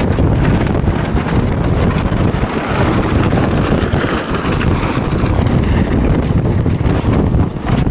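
Strong wind, about 30 knots, buffeting the microphone on a sailboat's deck: a loud, steady, low rumble.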